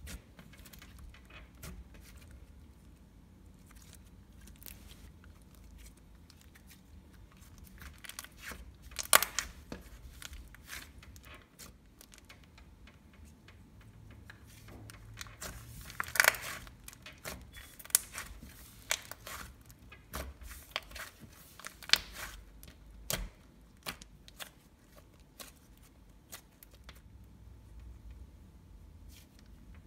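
Butter slime being squished, stretched and poked, making irregular clicks and crackles, loudest about nine and sixteen seconds in.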